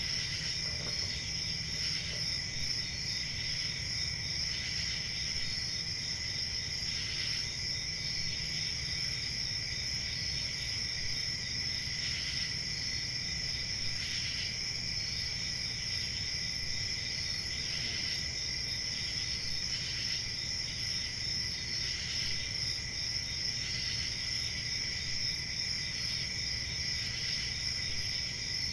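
Crickets chirping steadily, several at once, their trilling high-pitched and unbroken, over a faint low background rumble.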